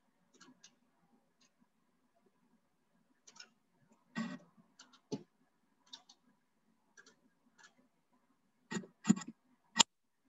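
Computer mouse and keyboard clicks, scattered and irregular, with the loudest few coming close together near the end.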